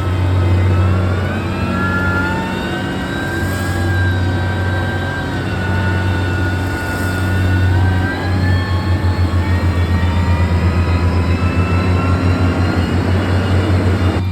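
Heavy diesel construction machine working, its engine running loud with a whine that rises in pitch a couple of seconds in and falls again about eight seconds in. From then on the engine sound throbs rapidly, about five beats a second.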